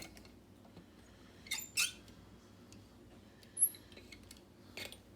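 Handling noise as a lock cylinder is set into a bench vise: a few faint clicks and scrapes, and a brief high squeak, the loudest sound, about three and a half seconds in.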